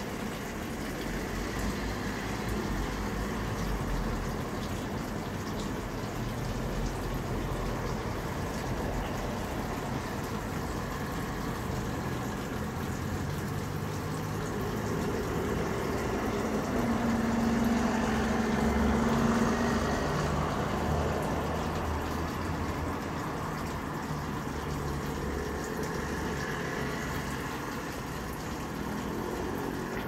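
Steady rushing of running tap water mixed with road traffic at a roundabout. A double-decker bus's engine grows louder and fades a little past halfway.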